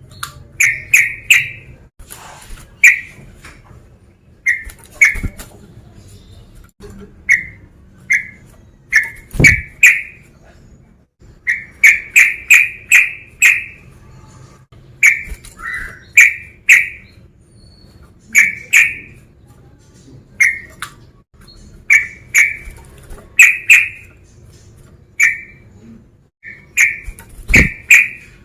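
Male yellow-vented bulbul (trucukan) calling: short, clicky, chattering notes in quick groups of two to five, repeated every second or two. Two low thumps come about a third of the way in and near the end.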